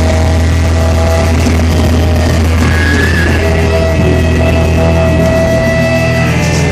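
Live rock band playing loud and steady, electric guitars sustaining long held notes over bass and drums, heard as a loud concert recording.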